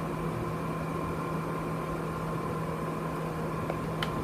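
Steady hum from a running Tektronix 2467B oscilloscope with its cover off, a fan-like noise with a low tone and a fainter higher tone under it. A light click near the end.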